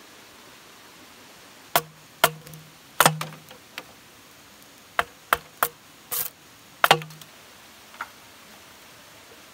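Machete striking bamboo: about ten sharp, irregular chops, each with a short hollow ring, starting about two seconds in. The strikes die out near the end.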